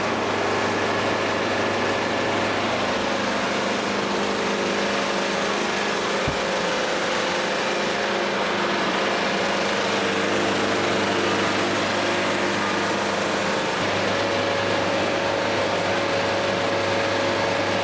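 A handheld power limb trimmer running steadily as it cuts protruding limbs off a cypress log, with a single low thump about six seconds in.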